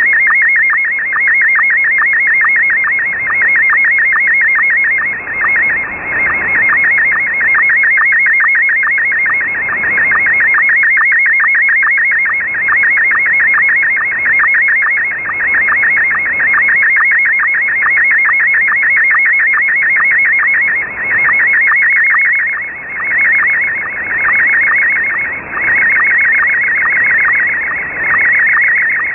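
Slow-scan television (SSTV) picture signal received on shortwave in upper sideband: a loud, warbling stream of tones with a fast, even rhythm of scan-line pulses, over radio hiss. The signal fades and dips every few seconds as the shortwave path fades.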